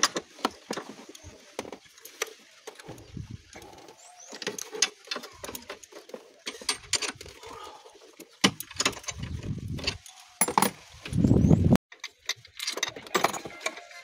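Metal hand tools clicking and clinking against the Peugeot 307CC's 2.0 L petrol engine, scattered sharp ticks and knocks. A low rumble swells twice in the second half; the second, louder one cuts off suddenly.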